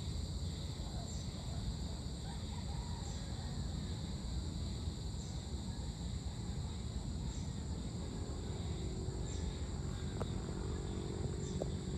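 Outdoor dusk ambience: a steady high-pitched insect chorus over a continuous low rumble. A faint hum joins about two-thirds of the way through, and a few faint clicks come near the end.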